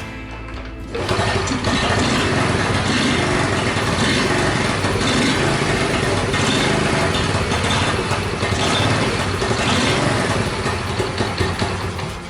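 Honda SS50's 49 cc single-cylinder four-stroke engine running steadily, starting about a second in.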